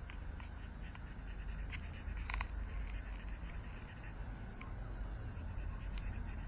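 Marker pen colouring in on paper: faint scratchy strokes with a few clicks, over a steady low hum.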